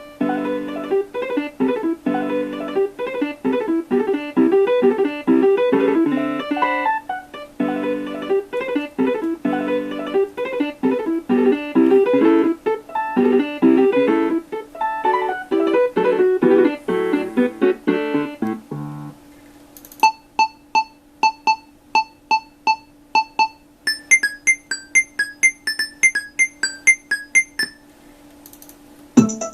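Nokia 3585 ringtones played as MIDI on a Sound Blaster Live! sound card's synthesizer with the Mobile60 soundfont. A busy many-note melody ends about 19 seconds in. A different ringtone follows: a held low note under short beeps about two a second, and the beeps jump higher about five seconds later.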